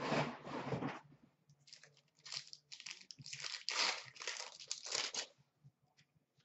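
Plastic wrappers of Upper Deck SP Authentic hockey card packs crinkling as a hand rummages among them, then a pack being torn open and its cards pulled out, in short rustling spells.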